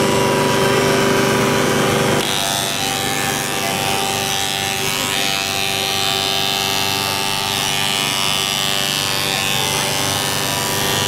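Electric hair clippers running as they shave a man's head, a steady buzz with a hiss of cutting over it; the sound shifts about two seconds in.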